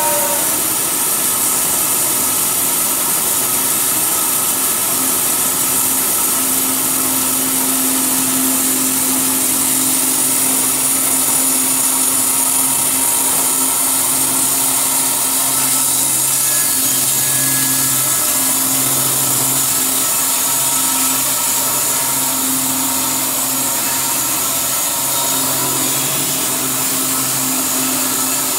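Electric band sawmill running steadily as its blade cuts through a log, a constant hiss of the cut over a steady motor hum.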